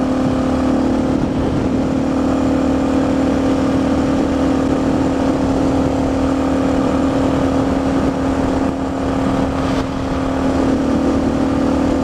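Suzuki DR650's single-cylinder engine running at a steady cruising speed, its pitch unchanging, under steady wind noise on a helmet camera.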